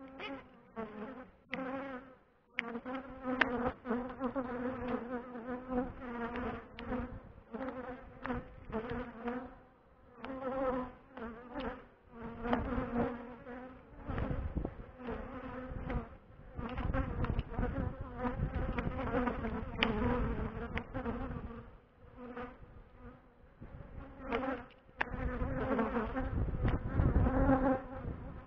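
Honeybees buzzing around a wooden beehive, flying close past the microphone again and again so that the buzz swells and fades. Gusts of wind rumble on the microphone at times.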